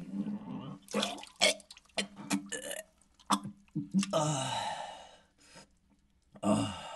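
A man burping: a long rasping burp about four seconds in and a shorter one near the end, with scattered clicks before them.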